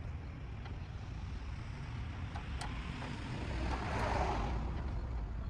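A passing road vehicle, swelling to its loudest about four seconds in and then fading, over a steady low rumble. A few faint clicks sound along the way.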